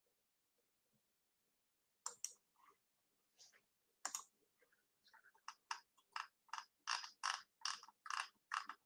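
Faint clicking at a computer: a few scattered sharp clicks, then from about halfway in a quicker run of about three clicks a second.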